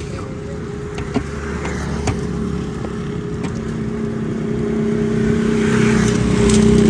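Motor engine running steadily, growing louder toward the end, with a few sharp clicks or clatters in the first half.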